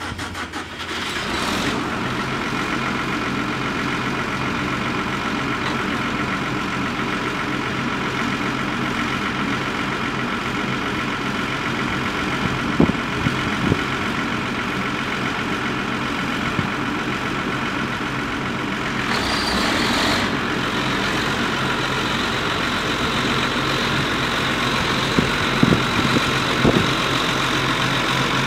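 John Deere 9420 tractor's six-cylinder diesel engine, just started, settling into a steady idle. About two-thirds of the way through there is a brief hiss, after which the engine runs a little louder with a faint higher whine, and a few short clunks come in the middle and near the end.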